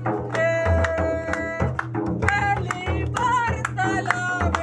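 Live folk song: a man's voice sings over a two-headed barrel drum played by hand. About half a second in he holds one long note, then breaks into shorter phrases, while the drum strokes keep up a steady beat.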